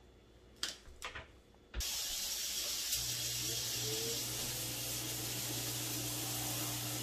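Kitchen range hood fan switched on about two seconds in: a sudden, steady rushing hiss, with a low motor hum joining about a second later.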